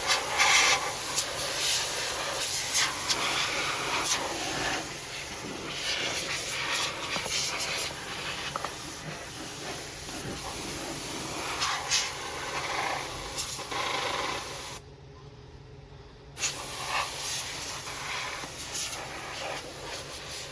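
Can of compressed air spraying in long blasts into an open desktop computer case to blow out dust: a loud, rough hiss with short flares. It stops about 15 seconds in for a second and a half, then starts again.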